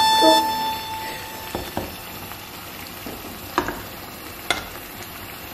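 Serving spoon scraping through thick yam porridge and clinking a few times against the pan and ceramic bowl as the porridge is dished out. Background music fades out in the first second.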